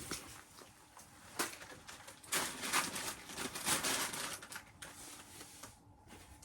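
Close-up handling noises: a sharp click about a second and a half in, then a couple of seconds of rustling and crinkling with small knocks, dying away near the end.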